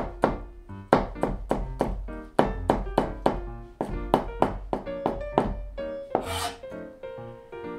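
Chef's knife slicing through an onion and knocking on a plastic cutting board, about four cuts a second, thinning out after about five seconds, with a brief scraping sweep about six seconds in. Soft background music with held notes plays underneath.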